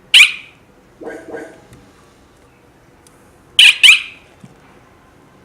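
CS-01 wireless alarm siren giving short, loud chirps: one right at the start, then two in quick succession about three and a half seconds in, with fainter short tones around a second in. The chirps acknowledge the M2B alarm panel being armed and disarmed.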